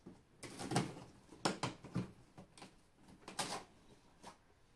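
Small scissors slitting the packing tape on a cardboard monitor box, with the cardboard scraping and rustling under the hands: a string of short, irregular scratchy rips and scrapes.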